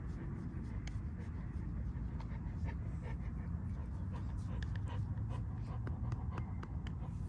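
A dog panting steadily, with faint scattered clicks over a low rumble.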